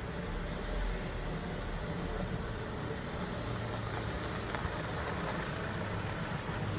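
2001 Audi A4 1.8T quattro's turbocharged four-cylinder engine, with a gutted catalytic converter, running at low revs as the car creeps slowly forward out of the garage, soon after a cold start.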